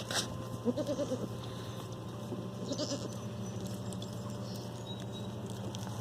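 Pygmy goat bleating twice, two short wavering calls about two seconds apart.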